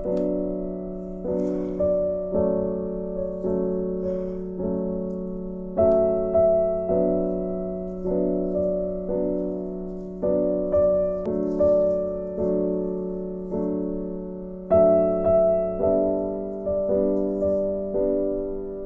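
Slow background piano music, with notes and chords struck about once a second and left to fade.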